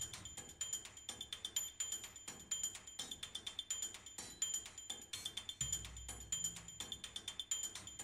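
Quiet background music with a quick ticking beat; a low bass comes in about five and a half seconds in.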